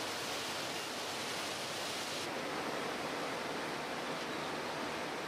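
Steady rushing background noise with no distinct events, the ambience of an outdoor shipyard. It loses some of its high hiss about two seconds in.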